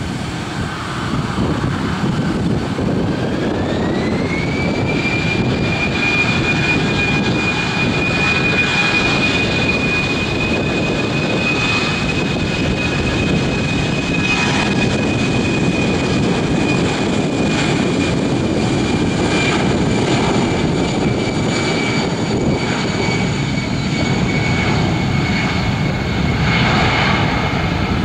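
Airbus A319 jet engines (CFM56 turbofans) spooling up to take-off thrust: a high whine climbs in pitch about three seconds in and then holds over a loud, steady rushing noise as the airliner accelerates on its take-off run.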